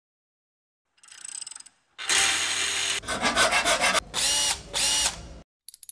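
Makita cordless drill driver running in short bursts. Its motor spins up to speed twice near the end, about half a second apart.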